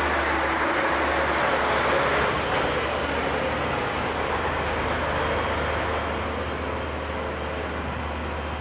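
Diesel engine and tyres of a Faun BKF35-4 four-axle recovery crane truck driving past and away at low speed. A steady running sound that slowly fades as it moves off.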